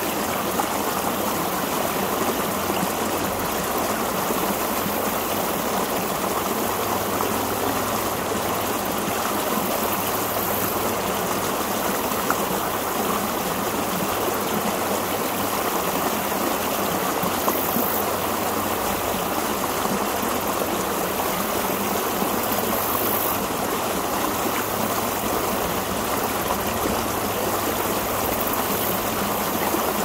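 Water from a lake's outlet pipe pouring and splashing down over rock: a steady, unbroken rush of falling water.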